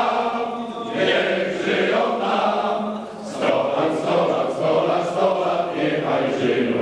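A group of men singing together in chorus as they raise their glasses, a toast song, in phrases about a second long with a short break about three seconds in.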